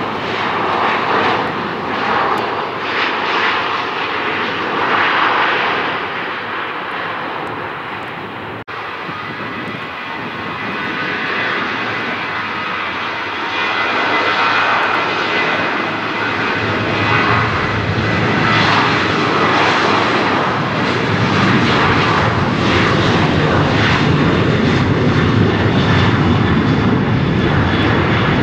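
Fixed-wing aircraft engines running loud, a dense rushing noise. It breaks off for an instant about a third of the way through, then builds over several seconds and stays loud.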